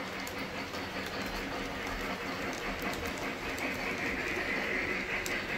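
Three-rail O-gauge model freight train rolling past: a steady rumble of metal wheels on the track with scattered light clicks, getting a little louder and hissier in the last couple of seconds as the cars run close by.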